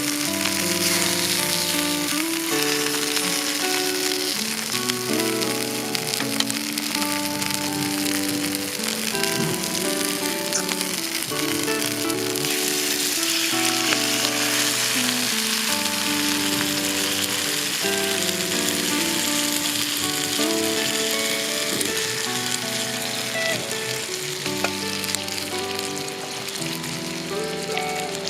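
Background music with a melody of held notes, over a steady hiss full of fine crackles, like food sizzling in oil.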